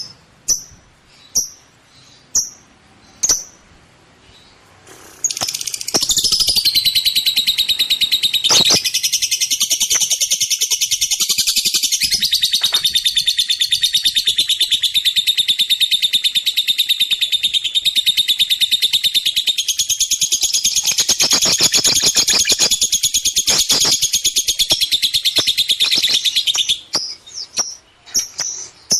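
Lovebird singing: separate sharp high chirps about once a second, then from about five seconds in a loud, unbroken, rapid chattering song lasting some twenty seconds, breaking back into single chirps near the end.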